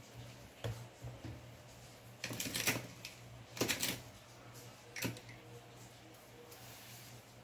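Clicking and rattling from hands working on the laptop: a few single clicks, two short bursts of dense clatter about two and a half and three and a half seconds in, and a last sharp click about five seconds in.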